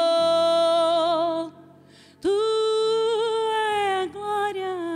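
A woman singing long held notes into a microphone, a worship song sung without words here. The first note ends about a second and a half in; after a short pause a second note is held and steps lower near the end, over soft sustained low chords.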